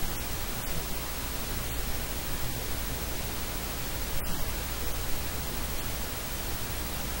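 Steady, even hiss like static, with no speech to be heard.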